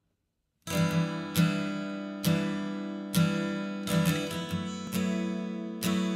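Acoustic guitar strummed in slow chords, about one strum a second, each left to ring and fade. It starts just under a second in.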